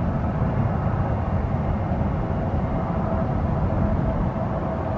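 Jet airliner engines running, a steady low rumble with a steady whining tone above it.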